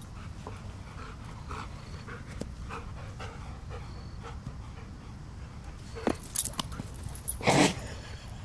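A dog panting during play, with a few louder sharp noises about six and seven and a half seconds in.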